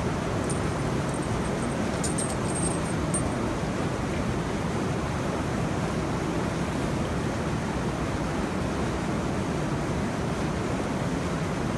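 Steady rush of river water pouring through and over the wooden needles of a needle dam, with a few faint high ticks about two seconds in.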